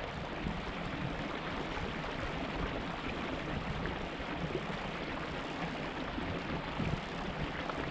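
Small trout creek trickling: a steady, even rushing noise with irregular low rumbles underneath.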